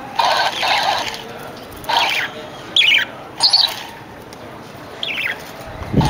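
Budgerigars calling: a string of short, harsh squawks and quick falling chirps, about five in all.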